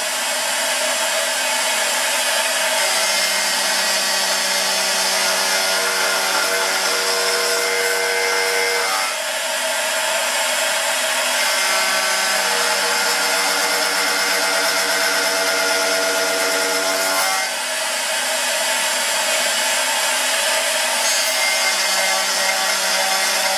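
CNC router spindle driving an end mill through aluminum as it cuts slots: a steady whine over cutting noise. The sound dips briefly and its tone changes about nine and again about seventeen seconds in.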